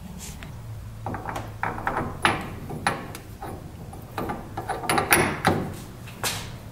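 Steel side coupler of a Spartan locker being worked by hand into a Ford 8.8 differential carrier: irregular metal clinks and clunks as the part slides against the carrier and seats, loudest near the end.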